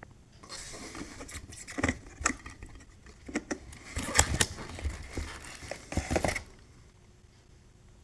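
Hands handling ceiling-fan parts and their packaging: rustling with a run of sharp clicks and knocks, loudest about four seconds in, stopping a little after six seconds.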